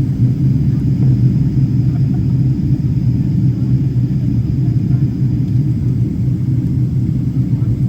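Steady low rumble of engine and airflow noise inside a Boeing 777's economy cabin, with a faint thin whine above it.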